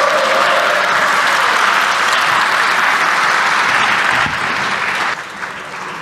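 Audience in a large hall applauding, the clapping thinning out about four seconds in and dying away about five seconds in.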